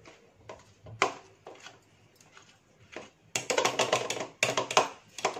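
Wire whisk stirring wheat flour into an oil-and-sugar mixture in a ceramic bowl, its tines clicking and scraping against the bowl. Scattered taps at first, then a fast run of clicks for about two seconds near the end.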